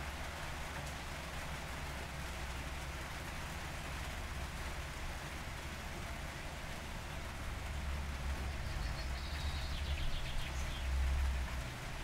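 Steady rain falling, an even hiss of drops. A low rumble swells about two-thirds of the way through, and a short, quick bird call sounds over it.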